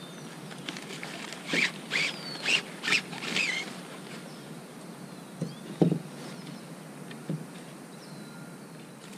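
A cloth rod sock swishing and rustling as a fishing rod is drawn out of it, five or six quick strokes a couple of seconds in. Then come a few light knocks as the rod's pieces are handled.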